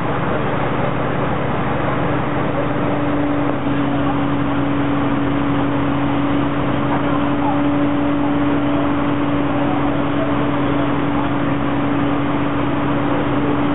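Heavy fire-brigade truck's diesel engine running steadily with a constant hum.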